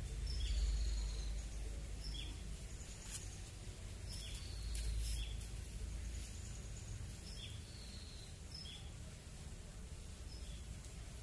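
Small birds chirping: short high calls about once a second, some followed by a drawn-out whistled note. Beneath them is a steady low rumble.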